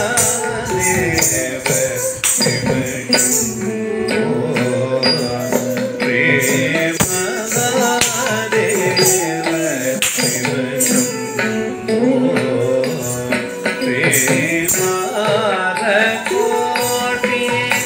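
Music accompanying a classical Indian dance: a melody over a drum rhythm with jingling percussion.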